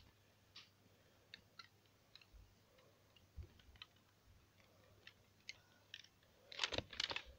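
Near silence broken by scattered faint, short clicks, with a brief cluster of louder clicks and rustling near the end.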